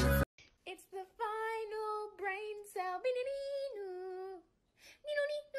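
Loud music cuts off abruptly right at the start, then a high voice sings softly, a slow little tune of held notes with short breaks between phrases.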